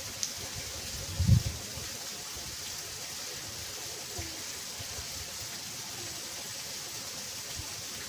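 Steady rush of water flowing in a ditch, with one low thump about a second in.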